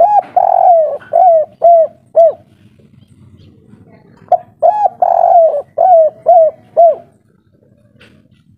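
Spotted dove cooing twice. Each phrase is a long coo followed by three short, evenly spaced 'kuk' notes, the three-note 'kuk 3' ending that keepers prize. The second phrase comes about four seconds after the first.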